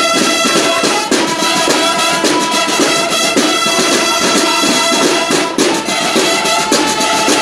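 Marching band of snare drums and brass horns playing: held horn notes over a steady snare-drum beat.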